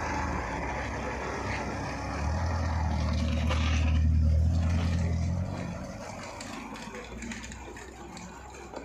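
A motor vehicle's engine passing by on the street, a low steady hum that builds to its loudest about four seconds in and then fades away.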